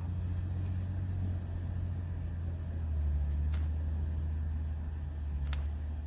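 A steady low rumble with two faint clicks, one about halfway through and one near the end.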